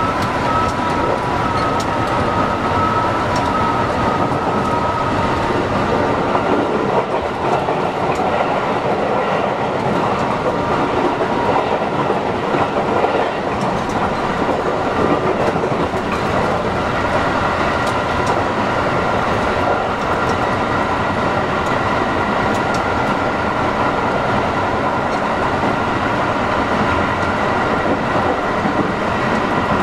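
Running sound of a JR West 223-series electric multiple unit motor car (KuMoHa 223-3009) at speed: a steady rumble of wheels on rail, with a steady whine from its VVVF-inverter traction motors and occasional light clicks. A second, higher whine joins about halfway through.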